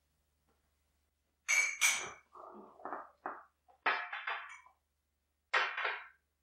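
Ceramic mugs set down one after another on a glass coffee table: a string of clinks and knocks, with softer handling sounds between them.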